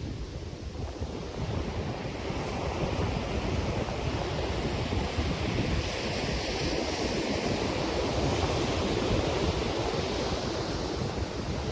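Sea surf breaking and washing on a beach, a steady hiss that swells about halfway through, with wind rumbling on the microphone.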